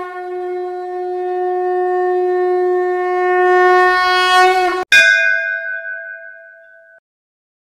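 Conch shell (shankh) blown in one long steady note that grows louder over about five seconds. After a short break comes a higher note that fades out.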